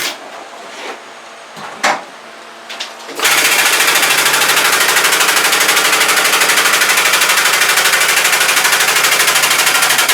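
Electric hoist motor running with a loud, rapid, even rattle as it lifts its load all the way up. It cuts out right at the start, leaving a pause with a couple of small knocks, and starts again about three seconds in.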